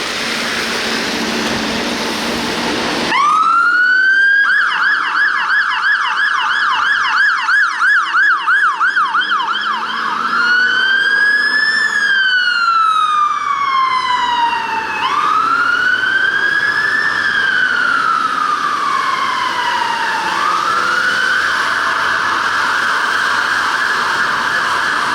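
Fire engine siren starting about three seconds in: a fast yelp for several seconds, then switching to a slow wail that rises and falls, then a rapid warble near the end.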